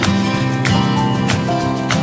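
Background music led by acoustic guitar, with a steady beat.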